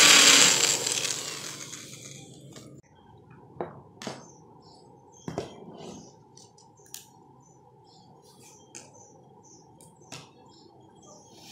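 A power drill with a hinge-cup boring bit cutting into a white cabinet door panel, then winding down and stopping over the first two seconds or so. After that come scattered clicks and knocks of metal hinges and screws being handled on the panel.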